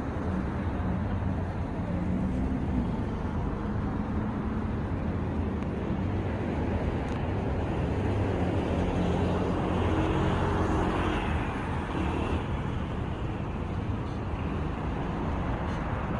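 Steady city traffic rumble from cars passing on the streets below, swelling a little about ten seconds in.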